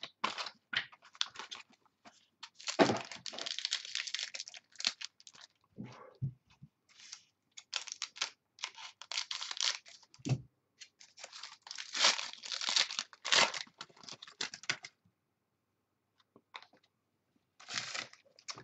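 Trading card packaging being torn open and crinkled by hand, in irregular bursts that die away about fifteen seconds in, with one more short rustle near the end.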